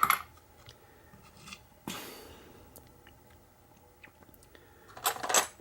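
Small handling noises at a workbench: a click, a short scrape about two seconds in, faint ticks, then a rustle of rummaging near the end, as of someone searching for tweezers among tools.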